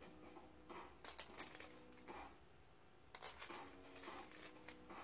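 Small plastic Lego pieces clicking faintly against each other as hands sift through a loose pile, with a few clusters of light clicks about one second and three seconds in.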